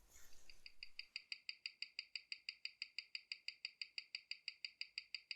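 Mechanical watch movement, the Orient caliber 4694, ticking at a steady rate of about seven short, bright ticks a second, starting about a second in once the balance is running.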